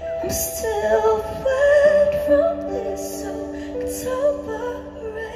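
A woman singing a slow ballad into a microphone over long, held stage-keyboard chords.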